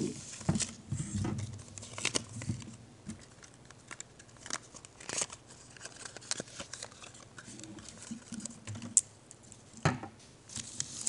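Paper and plastic packaging crinkling and tearing as a naloxone box and syringe wrapper are handled and opened, with irregular sharp clicks and taps from the small glass vial being handled; the loudest click comes a little after nine seconds in.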